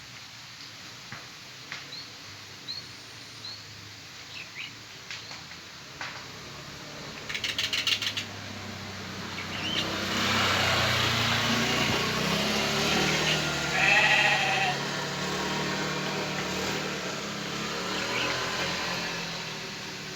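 Sheep bleating, with one loud bleat a little past the middle over a broad rushing noise. Before it come scattered small clicks, faint short chirps and a quick rattle of clicks.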